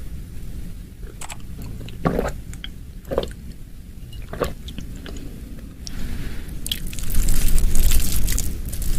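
Close-miked mouth sounds of a person eating: a few separate bites and mouth clicks, then from about seven seconds in, louder continuous chewing with dense crackling clicks.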